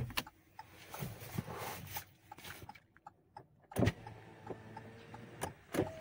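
Hyundai Tucson power window motor stopping with a click as the freshly cleaned window switch is released, followed by handling noise, a sharp switch knock about four seconds in, and two more clicks near the end as the window motor starts again.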